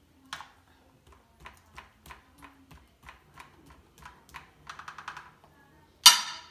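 Light clicking and crinkling from a silicone spatula working herb butter over a raw turkey in a disposable aluminium foil roasting pan, a few sharp ticks a second with a quick flurry near the end. Then one loud clatter as the spatula is set down on a plastic cutting board.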